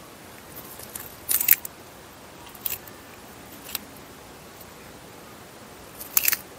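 An Eastern Hermann's tortoise biting and tearing crisp leafy greens: a few short, sharp crunches, loudest about a second and a half in and again near the end.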